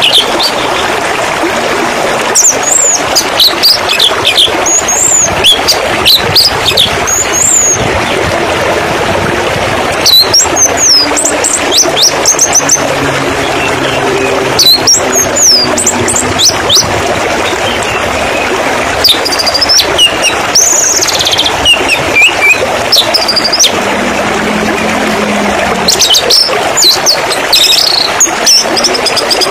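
Steadily flowing, splashing water with small birds chirping and whistling over it, short quick calls coming in scattered bunches.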